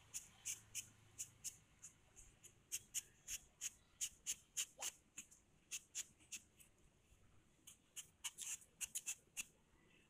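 A knife blade cutting through the sole of a rubber Hawai flip-flop, heard as a run of short clicks, irregular, about three a second.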